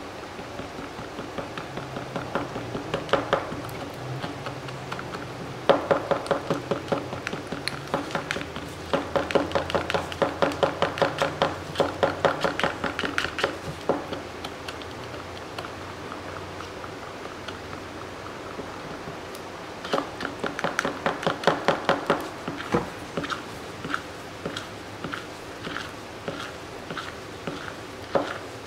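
Clear epoxy resin being stirred in a plastic cup with a stir stick: quick scraping, tapping strokes, several a second, in spells of a few seconds with short pauses between.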